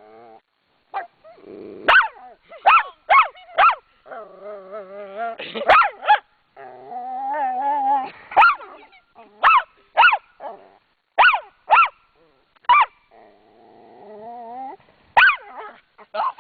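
A small dog barking angrily in sharp, high-pitched barks, often in quick runs of two to four, between stretches of wavering growling. The dog is agitated from being teased.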